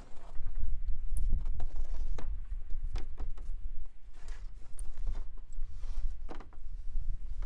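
Knocks and scrapes of OSB sheathing sheets being handled and shoved up onto wooden roof rafters, a dozen or so irregular sharp knocks over a steady low rumble.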